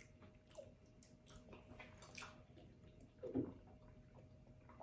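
Quiet chewing and mouth sounds of a person eating close to the microphone: faint scattered smacks and clicks, with one louder short sound about three and a half seconds in, over a faint steady hum.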